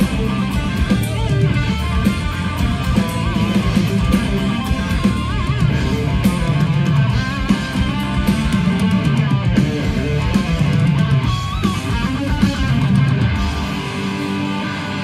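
Live heavy metal band playing loud, with distorted electric guitars over bass and drums, heard from the crowd. Near the end the deep bottom end drops out, leaving the guitars.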